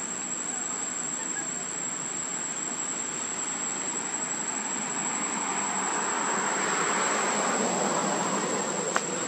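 Steady outdoor background noise that swells louder about six to eight seconds in, with a constant thin high-pitched tone and a single sharp click near the end.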